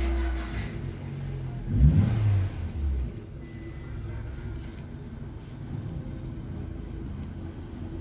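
An engine running, rising and falling in pitch as it revs briefly about two seconds in, then settling to a steady low rumble.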